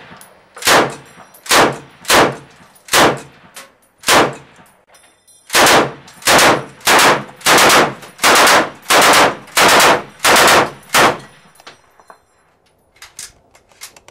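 M60E4/Mk43 Mod 1 7.62mm NATO machine gun firing a string of short bursts, roughly one every two-thirds of a second. There is a brief pause about four seconds in, and the firing stops a few seconds before the end.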